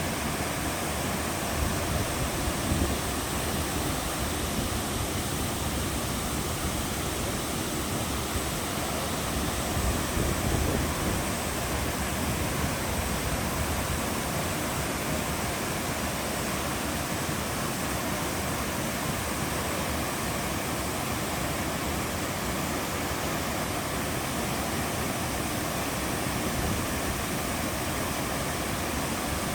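Jikso Falls, a waterfall, pouring steadily into its pool with a constant rushing roar of falling water. It swells a little a couple of times.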